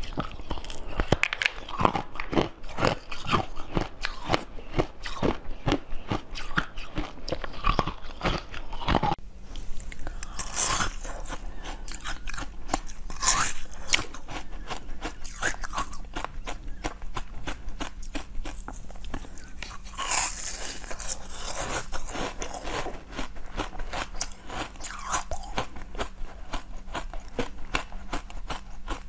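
Close-miked eating: a rapid run of crisp bites and crunches, then about nine seconds in slower chewing with occasional louder crunches.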